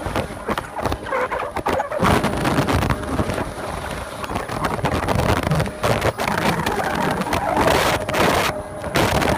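ZBA automatic plastic film folding machine running, its rollers turning as plastic film feeds through: a dense, uneven mechanical noise with many small knocks and clicks.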